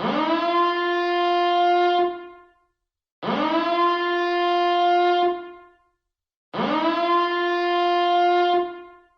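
Nuclear reactor alarm horn sounding in repeated blasts, three of them here, about one every three seconds. Each blast slides quickly up to a steady, buzzy horn pitch, holds for about two seconds, then fades out.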